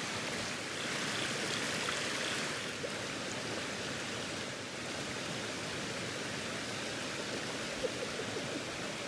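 Waterfall pouring into a rock pool: a steady rush of falling water, a little stronger in the first couple of seconds.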